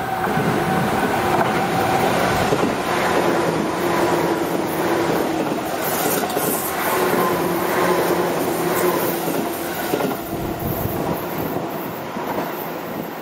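Tobu 10000-series eight-car electric commuter train passing close by: a steady rumble of wheels on rail with a steady whining tone and scattered clacks over rail joints. The sound dies away near the end as the last car goes by.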